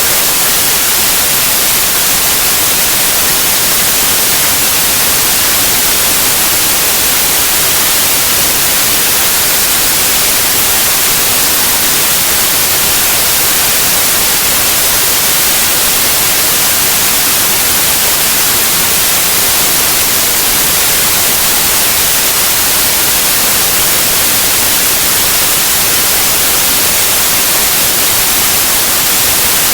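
Steady white noise: an even hiss, brightest in the high end, with no change throughout.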